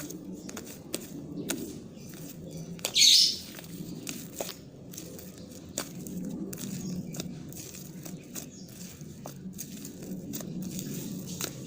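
Foamy, creamy slime being stirred and squished by hand, giving irregular sticky clicks and small pops. About three seconds in there is one short, loud hissing burst.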